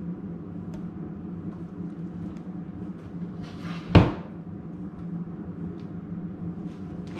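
A single sharp knock about four seconds in, just after a brief rustle, over a steady low hum.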